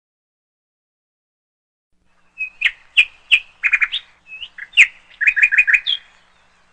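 A songbird singing: sharp, high chirps and short, quick trills of repeated notes, starting about two seconds in and lasting about four seconds.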